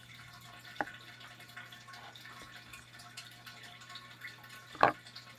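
Clear liquid for slime being poured slowly into a bowl, a faint trickle and drip, with a light click about a second in and a louder knock near the end.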